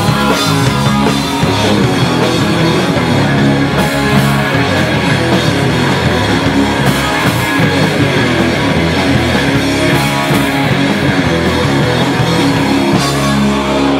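Rock band playing loudly together: electric guitars, bass guitar and a drum kit with cymbals. Near the end the band lands on a held, ringing chord.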